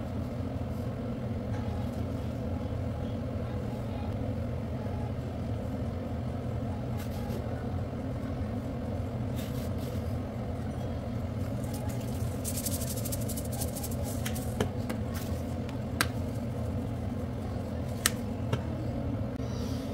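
Steady low mechanical hum, like a motor or fan running, with a flurry of light clicks and taps about two thirds of the way through and a couple of single sharp ticks near the end.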